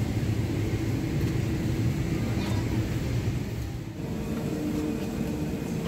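Cabin ambience of a Boeing 747 parked for boarding: a steady low hum with faint passenger voices, its tone shifting slightly about four seconds in.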